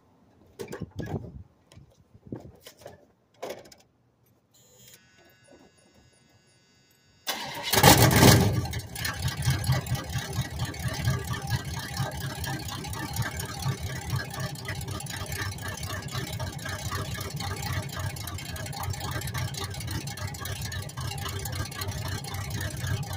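Footsteps and knocks, then a steady high tone for about two seconds. About seven seconds in, the 1977 Chevrolet Impala's engine starts suddenly, flares up loudly for a second or so, then settles into a steady idle. This is a cold start at 28 °F.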